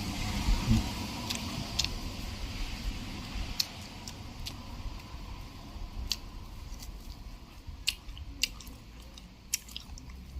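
Someone eating a chicken leg: scattered small clicks and wet chewing sounds, with a few low thumps about half a second in.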